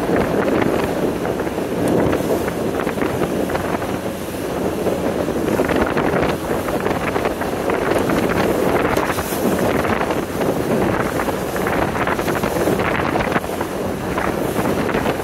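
Heavy wind buffeting the microphone aboard a moving motorboat, over the rush of choppy water along the hull, with the noise surging and easing in gusts.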